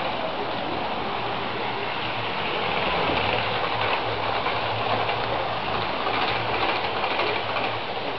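Model trains running on the layout's track: a steady rushing whir of small electric motors and wheels on rail, with a faint low hum underneath.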